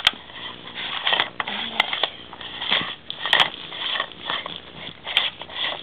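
Plastic toy playset pieces clicking, knocking and rattling irregularly as they are handled and moved.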